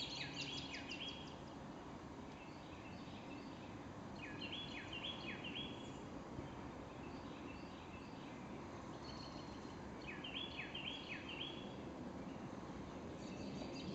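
A songbird singing faintly: four short phrases of quick, falling whistled notes, each phrase four or five notes long, over a soft outdoor background hiss.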